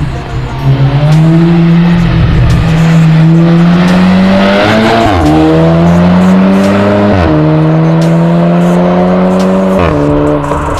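Seat Leon Cupra 300's turbocharged four-cylinder engine, fitted with an Armytrix valved exhaust, accelerating hard through the gears. The pitch climbs steadily and drops back at three upshifts, about five, seven and ten seconds in.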